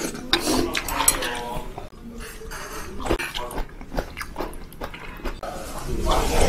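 A person eating hangover soup noisily: a metal spoon clicking against the bowl, chewing and mouth sounds, and a long slurp of bean sprouts near the end.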